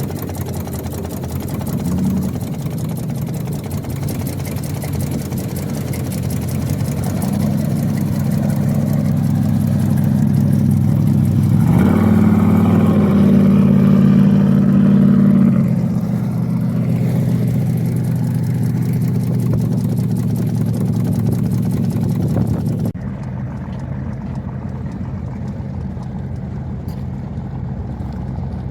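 Motorboat engine running steadily, rising in pitch and getting louder about twelve seconds in, then easing back. A duller engine sound abruptly takes over near the end.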